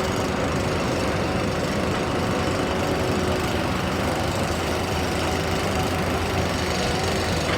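Diesel engine of a JCB 225LC tracked excavator running steadily, with a constant hum.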